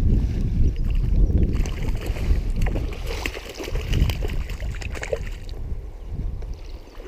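Wind buffeting the microphone as a low, gusty rumble, heaviest in the first few seconds and easing off, over hissing stream water with a few small clicks and splashes.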